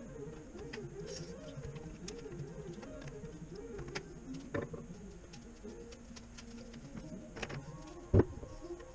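Scattered clicks and taps of hand tools on metal fittings, with one sharp knock about eight seconds in, over soft background music.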